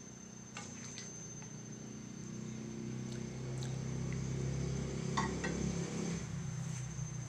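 Curry simmering in a wok, with a spatula stirring and tapping against the pan in a few short clicks. A steady low hum grows louder in the second half.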